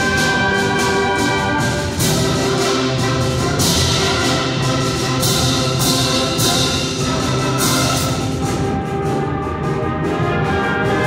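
Symphonic band of brass, saxophones and woodwinds playing loud held chords, with percussion strikes every second or two.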